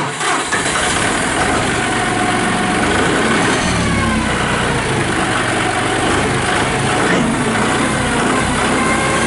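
2013 John Deere 5045D tractor's three-cylinder turbo diesel engine idling steadily, just after being started.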